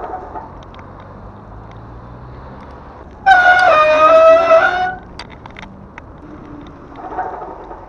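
A loud horn blast about three seconds in, lasting about a second and a half: one tone that sags slightly in pitch before cutting off. It sounds over steady wind and tyre noise from a bicycle ride.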